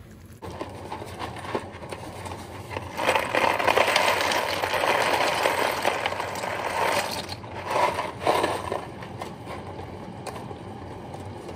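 Dry penne pasta pouring and rattling out of a cardboard box into a pot for a few seconds, followed by a couple of short shakes of the box.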